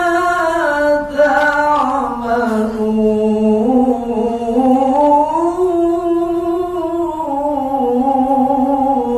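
Man reciting the Quran in melodic tilawah style, drawing out one long ornamented phrase in a single breath. The pitch sinks slowly for the first few seconds, then climbs and is held high to the end.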